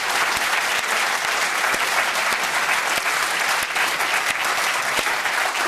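A large studio audience applauding: many people clapping in a dense, steady wash of applause.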